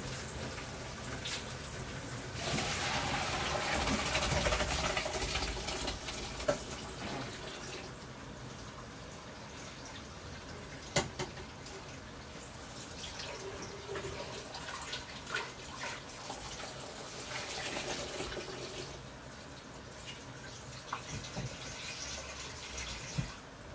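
Water pouring and running into a kitchen sink as a pot of boiled rice is drained through a strainer, heaviest for a few seconds near the start and then a steadier trickle, with a few sharp clinks.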